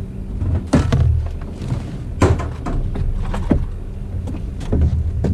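Steady low hum of a boat motor, with about eight irregular knocks and clunks of gear being handled on the boat.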